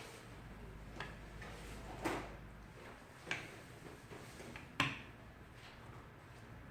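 Four light clicks and knocks of small hard objects being handled and set down on a work surface, the loudest about five seconds in.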